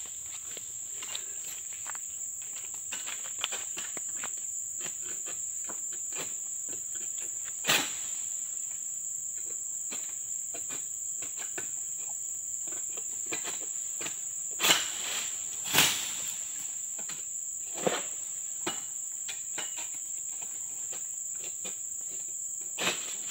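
Steady high-pitched drone of insects, with five sharp knocks or thuds scattered through it, the loudest two close together about two thirds of the way in.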